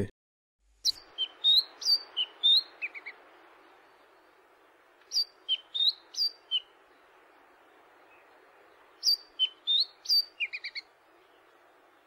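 A songbird singing three short phrases of clear, high whistled notes, each about two seconds long and a few seconds apart, over a faint steady hiss.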